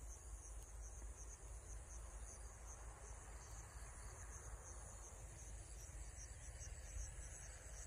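Field insects chirping in a steady, high-pitched pulsing trill that repeats several times a second, over a faint low rumble.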